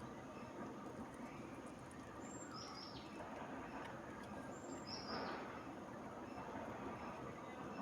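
Two short, high-pitched bird chirps, about two and a half seconds apart, over a steady outdoor background hiss.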